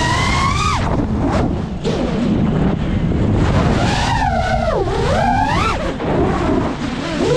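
Brushless motors of a GEPRC Mark5 FPV quadcopter whining with the throttle, over a steady rush of propeller and wind noise. The pitch climbs and drops sharply just under a second in, dips low and swoops back up around the middle, falls again, then rises near the end.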